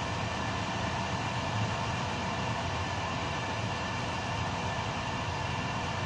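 Intercity passenger train running along the track, heard from inside its last carriage: a steady rumble and hiss of wheels on rails, with a few faint steady tones above it.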